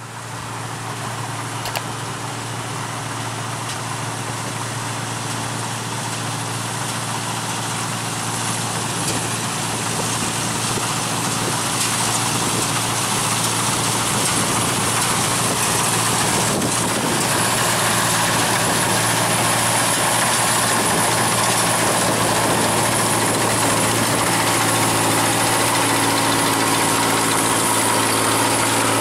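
Tracked rice combine harvester running steadily while cutting a paddy field, its engine and machinery growing gradually louder as it approaches.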